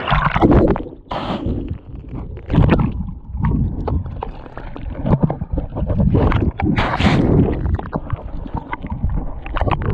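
Surf sloshing and splashing around a waterproof camera held at the water's surface, in irregular surges, with stretches where the camera dips underwater and the water rushes and gurgles around it.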